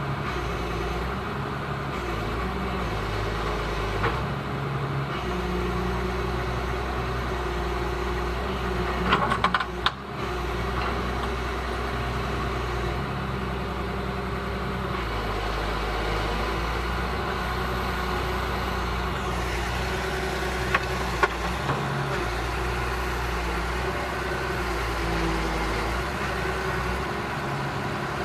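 Heavy excavator's diesel engine running steadily. A short cluster of sharp metallic knocks comes about nine seconds in, and two more brief knocks near twenty-one seconds.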